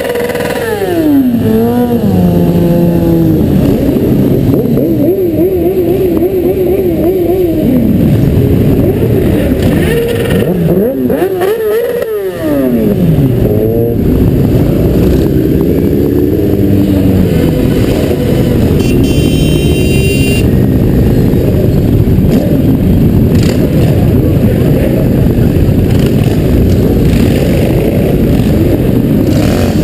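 Motorcycle engine heard close up from a helmet camera, its revs falling and rising several times as it rides at low speed, over the steady rumble of many other motorcycles riding alongside.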